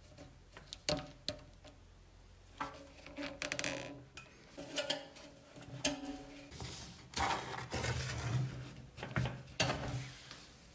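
Metal parts clinking and clattering against each other and a hard surface: a series of sharp knocks, some leaving a short metallic ring.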